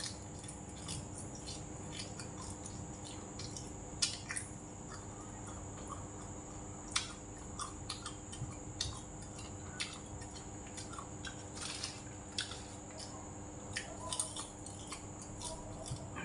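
A person chewing a chewy rice-paper snack (bánh tráng), with irregular wet mouth clicks and smacks, over a steady faint hum.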